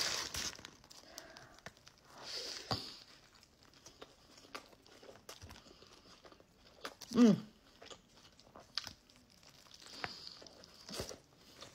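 Eating a large sandwich: bites and chewing, with the paper wrapper crinkling. A short hum from the eater about seven seconds in.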